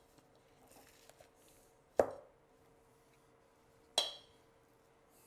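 A plastic spoon knocking twice against a stainless steel mixing bowl while scooping cooked rice, each knock sharp with a brief metallic ring, about two seconds apart.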